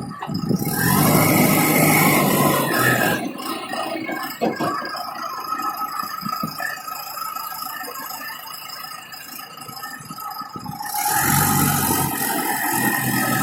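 Engine of a 3.5 m³ self-loading concrete mixer truck running, with some rattling. It is louder in the first few seconds, drops back through the middle and rises again abruptly near the end.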